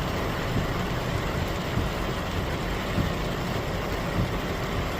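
Heavy typhoon rain pouring: a steady rushing hiss with an uneven low rumble underneath.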